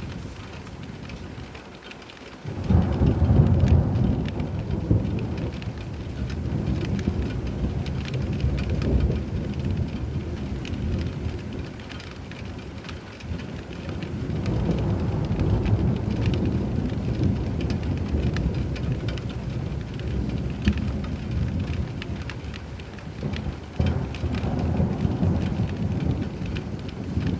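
Thunderstorm: steady rain falling, with a sudden deep rumble of thunder about two and a half seconds in that rolls on. The thunder swells again about halfway through and once more near the end.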